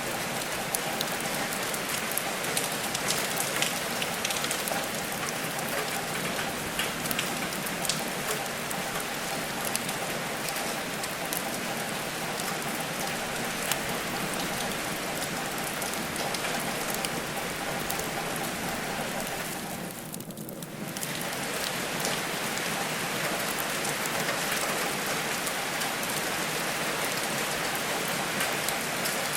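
Steady rain falling on a surface, an even hiss dotted with sharp ticks of individual drops. The sound thins out briefly about two-thirds of the way through, then returns.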